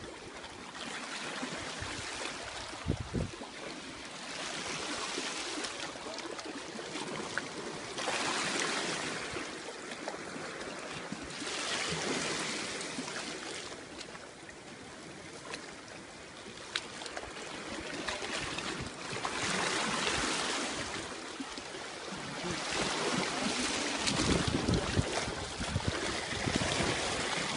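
Sea waves washing and swirling against shoreline rocks, swelling and fading every few seconds.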